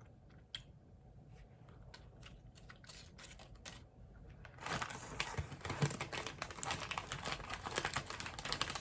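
Crinkling of a plastic snack bag being opened and handled. A few faint scattered clicks come first, then about halfway through a dense, steady crackle begins.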